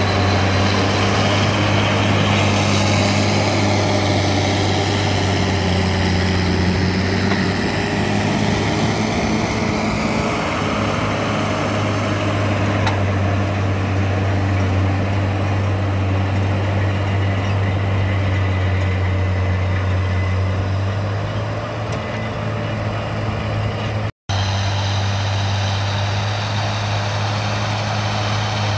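John Deere 7800 tractor's six-cylinder diesel engine running steadily under load as it pulls a tined cultivator through heavy soil. The sound drops out for an instant near the end.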